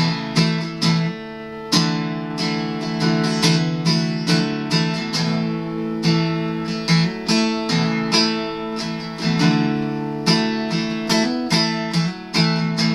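Acoustic guitar strummed in a steady rhythm, an instrumental break between sung verses.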